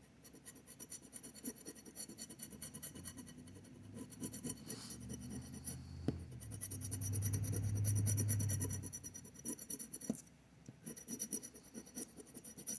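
Scratch-off lottery ticket having its coating scraped away in quick, repeated strokes. A low hum swells and fades about halfway through.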